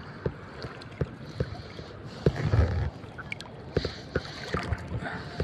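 Shallow seawater sloshing and splashing around wading legs, with scattered sharp clicks and knocks. A louder, low rush comes about two and a half seconds in.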